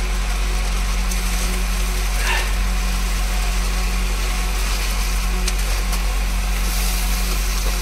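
Steady hiss of a gas stove burner and frying in a kadhai with a low hum underneath, just after raw chicken pieces have gone into the fried onions, with a few faint clicks of a ladle.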